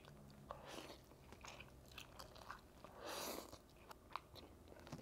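A person chewing and slurping instant ramen noodles eaten with chopsticks, with scattered small clicks and a longer slurp about three seconds in.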